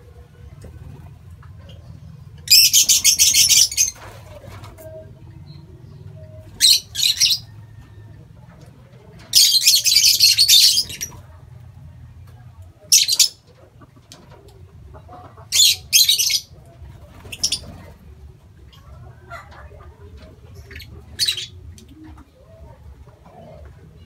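Aviary lovebirds calling in shrill, harsh bursts, about seven in all, the two longest lasting over a second, over a faint steady low hum.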